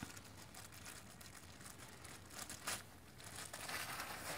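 Faint crinkling of a small plastic bag being handled, with a sharp crinkle about two and a half seconds in and a longer rustle near the end.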